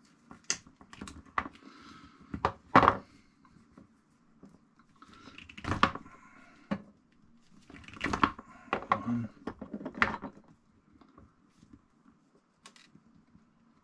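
Scattered clicks, taps and knocks of small parts and tools being handled on a wooden table while thin wires are worked into a small plug connector, the loudest knock about three seconds in.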